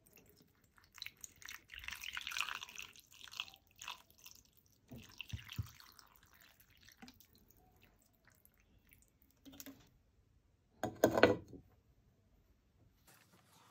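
Water poured from a large plastic bottle into a clay pot full of chicken and dried herbs, splashing in uneven spurts. Just before the end, the pot's ceramic lid is set down on it with one short, loud clunk.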